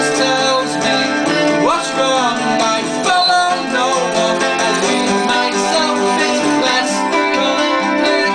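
Live acoustic music: a man singing into a microphone over acoustic guitar playing.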